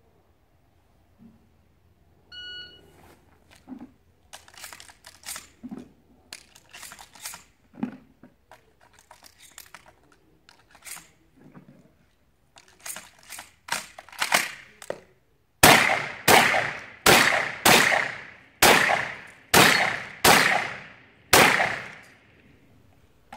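A shot-timer beep, then several seconds of shotgun shells rattling and clicking as they are taken from a bucket and loaded into the empty shotgun. Then about nine shotgun shots in quick succession, each just under a second apart, with the shots the loudest sound.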